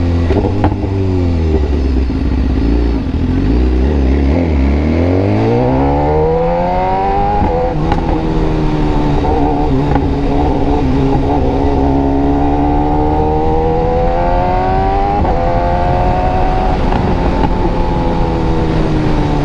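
BMW S1000RR inline-four, fitted with an SC Project exhaust, running loud on the road. The engine note first falls as the bike slows, then climbs as it accelerates, with brief breaks at gear changes about 7 and 15 seconds in, and holds fairly steady near the end.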